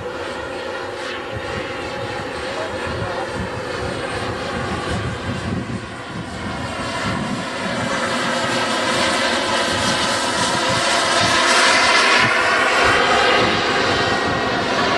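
Model gas turbine (Frank turbine) of a large-scale RC Lockheed U-2 jet, a steady rushing whine that builds as the model makes a low pass, loudest about twelve seconds in, then easing slightly as it moves away.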